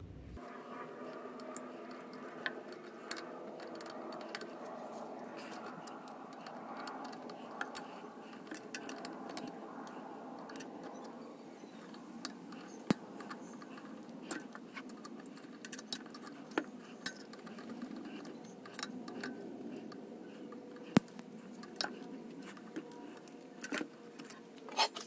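Light metal clicks and clinks of hand tools working on metal hardware, scattered irregularly while a faceplate held with safety wire is taken off, over a steady low hum.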